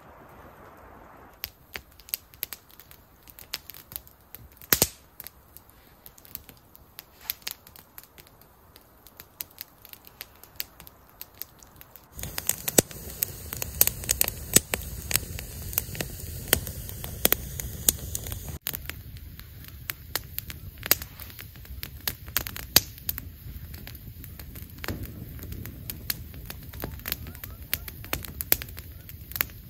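Wood campfire crackling, with frequent sharp pops and snaps. About twelve seconds in, a louder, lower rush of the fire sets in and carries on.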